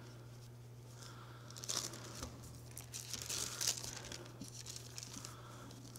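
Thin Bible pages being leafed through close to a pulpit microphone: a few soft, irregular papery swishes and crinkles, over a steady low hum.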